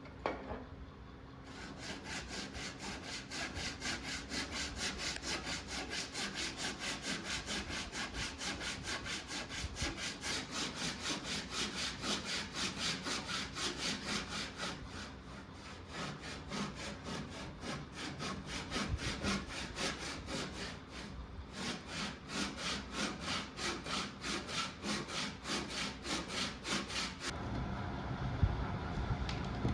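Hand saw cutting through wood in steady back-and-forth strokes, roughly two to three a second, with two brief pauses partway through. The sawing stops near the end, leaving a steadier low rumble.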